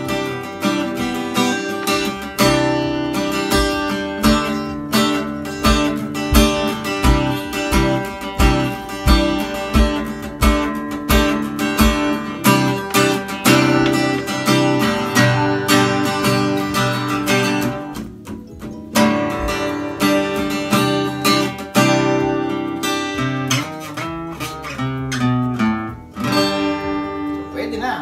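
Epiphone PR-4E mahogany acoustic-electric guitar strummed in a steady rhythm of chords, with a short break about two-thirds of the way through. The guitar is tuned, though not yet to the player's satisfaction.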